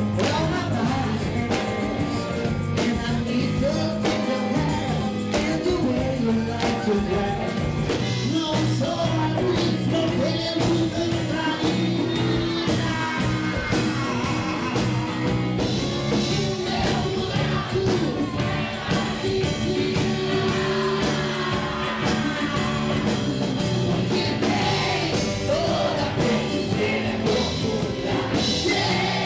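Live band performance: a lead singer's voice carried over electric guitar and a steady drum beat.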